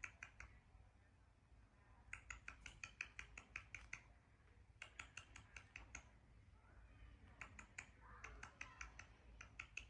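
Faint, rapid trains of small sharp clicks, several a second, coming in spurts of a second or two: a parrot's beak clicking and gnawing at a pair of metal earrings. Faint chirping comes in over a couple of seconds near the end.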